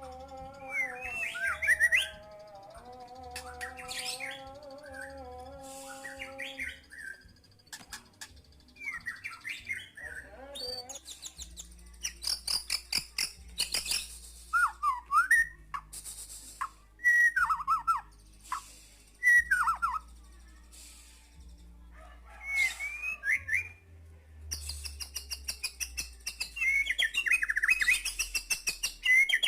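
White-rumped shama singing vigorously: a varied run of loud whistled phrases, quick rising and falling glides, and sharp clicks and rattles. A held, wavering tone sounds underneath for roughly the first seven seconds.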